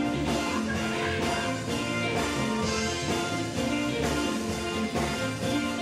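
Live gospel band music with electric guitar and a moving bass line, playing without words.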